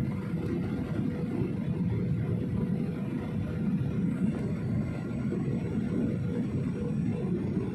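Steady cabin noise of a jet airliner on final approach, heard from a window seat beside the engine: an even rumble of engine and airflow with a thin steady hum over it.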